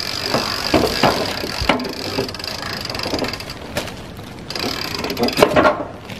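Two-speed hand winch cranked in first gear, hauling a light cedar log by rope up timber ramps onto a chainsaw mill: irregular clicks and knocks from the winch and the log riding up the ramps, which ease off near the end.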